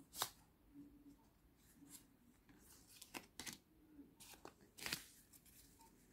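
A deck of oracle cards being handled: soft, scattered card flicks and slaps as cards are slid from a fanned deck and gathered together. The strongest come about a fifth of a second in and again just before five seconds.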